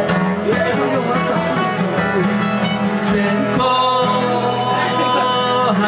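Live acoustic folk music led by guitar, an instrumental passage with a steady bass note under it. From about three and a half seconds in, long held melody notes sound over the guitar.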